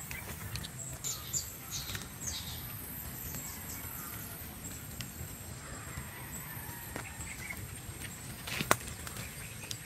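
Forest ambience: a few faint bird chirps one to two and a half seconds in, and scattered light ticks with one sharper click near the end. A low steady rumble runs underneath.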